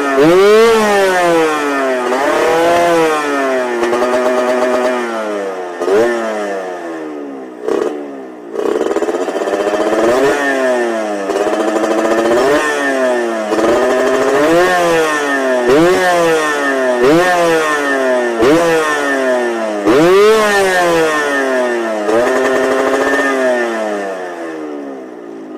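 Suzuki Satria single-cylinder two-stroke motorcycle engine revved over and over, each blip rising quickly and falling back about every second and a half, with a short lull about a third of the way through. The owner judges its high-rev note to lack the raspy 'ngorok' growl.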